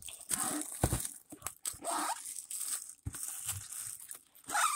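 Plastic shrink wrap on a cardboard trading card box crinkling and tearing under gloved hands, with a few short knocks as the box is handled.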